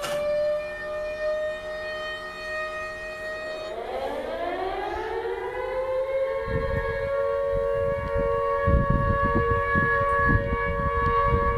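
Recording of an air-raid siren played back. It holds a steady wail, sinks and winds back up about four seconds in, then holds steady again. From about six seconds in there is low rumbling, like wind or handling noise on the microphone.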